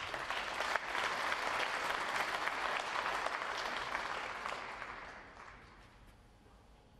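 Audience applauding, starting suddenly, holding for a few seconds, then dying away.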